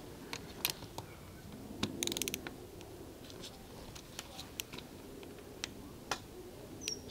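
Small torque wrench ratcheting and clicking as it tightens a brake master cylinder clamp bolt in a repaired stripped thread, aiming for 1 Newton meter. A quick run of ratchet clicks comes about two seconds in, with scattered single clicks before and after.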